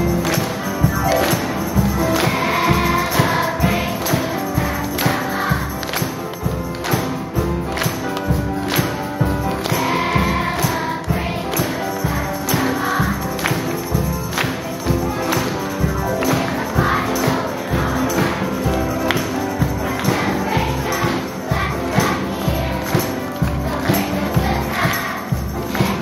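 Children's choir singing together, accompanied by music with a steady beat.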